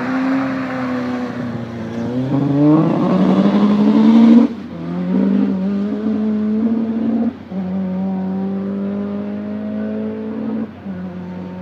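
Ford Fiesta sprint car accelerating hard through the gears: the engine note climbs, then drops sharply at each upshift, about four times. It is loudest around four seconds in and fades as the car pulls away.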